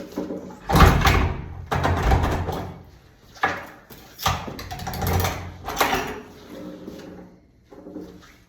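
Door rattling and knocking in its frame, about half a dozen loud knocks and scrapes, as a forcible-entry tool is worked behind the latch guard to open it.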